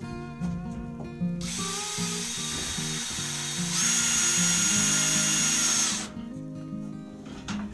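Cordless drill driving a screw into framing lumber: the motor runs from about a second and a half in, speeds up to a higher whine about halfway, then stops. Acoustic guitar music plays throughout.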